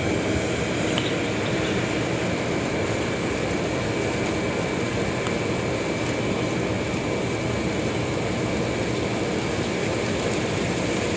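Steady drone of a running engine with a thin, constant high whine, unchanging throughout; no cranking or starting is heard.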